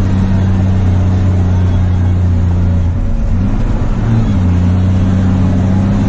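Heavy truck's diesel engine running steadily, heard from inside the cab while driving. Its note dips and then climbs briefly about three to four seconds in, then settles again.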